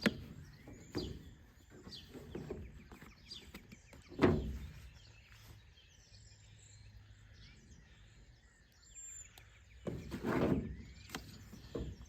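Handling noises from unpacking a jump-starter and air compressor kit: scattered light knocks and rustles, with one louder thump about four seconds in and a burst of handling near the end. Birds chirp faintly in the background.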